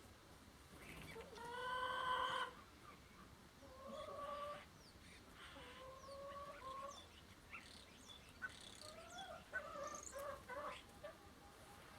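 Chickens calling: one long call a little after a second in, two shorter two-part calls around four and six seconds, then a run of short clucks near the end. Small birds chirp faintly in the background.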